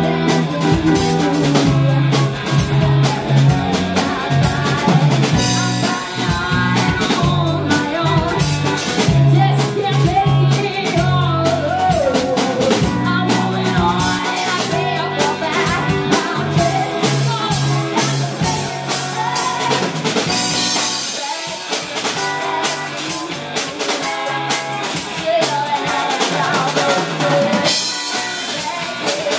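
Live rock band playing: a woman singing lead over electric guitars, bass guitar and a drum kit keeping a steady beat.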